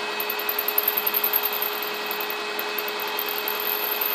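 Combination mill-drill running, its milling cutter cutting a slot into a mild-steel lathe spindle: a steady machine whine with a constant high-pitched tone.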